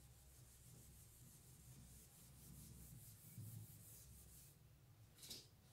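Near silence with faint rubbing and scratching of writing, with a brief sharper stroke near the end.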